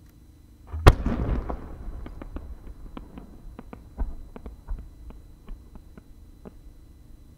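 A 10-gō (about 30 cm) aerial firework shell fired from its mortar: one deep launch boom about a second in that rings out and fades over a second or so, then a string of sharp, separate pops over the next few seconds from the small bursts attached to the rising shell.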